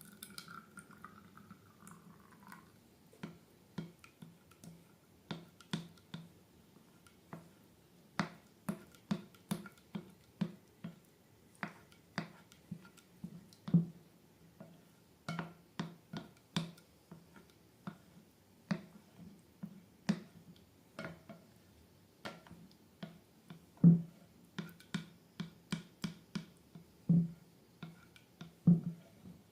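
Slime being pressed and poked by hand, giving an uneven run of sharp clicks and pops, about one to two a second, with a couple of louder pops along the way.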